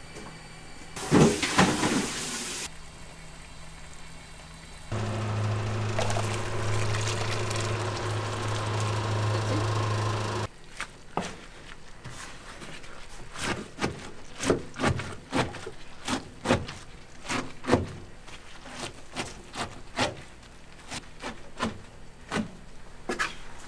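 A kitchen knife chopping boiled greens on a wooden cutting board: a quick, irregular run of chops from about halfway in. Before that comes a brief loud rush of noise about a second in, then a steady low hum for several seconds.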